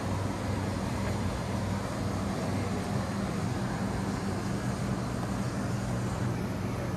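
Steady machinery noise: a constant hum of a few low tones under a broad hiss, unchanging throughout.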